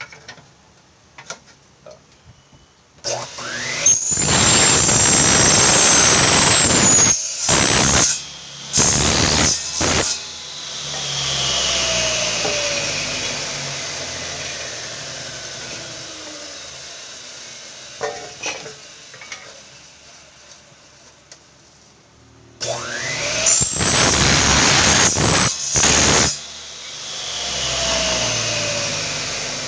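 Electric miter saw cutting aluminium profile at a 45-degree angle, twice: the motor starts with a rising whine, runs loud for a few seconds through the cut, then the blade coasts down with a long falling whine.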